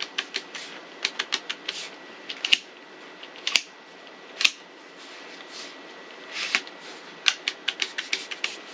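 Hard plastic clicks and taps of vacuum cleaner attachments being handled and fitted together. The clicks come in quick irregular clusters at the start and near the end, with a few single louder snaps in between.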